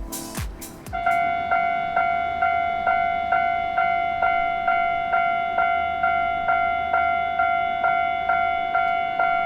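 Electronic music with falling sweeps ends about a second in. A Japanese railway level-crossing alarm then starts ringing: an electronic bell tone struck about twice a second, the warning that a train is approaching the crossing.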